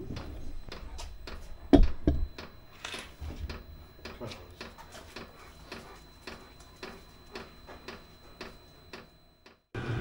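Chinese diesel air heater in its startup cycle, its fuel dosing pump ticking evenly about three times a second under a faint steady high tone. One loud thump about two seconds in.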